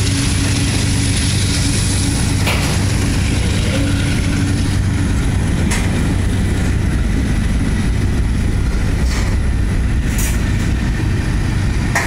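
Freight cars of a CSX manifest train rolling steadily past: a continuous rumble of steel wheels on rail with a few sharp clanks scattered through.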